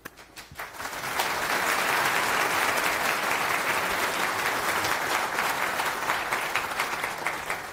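An audience applauding, swelling over the first second, holding steady and thinning out near the end.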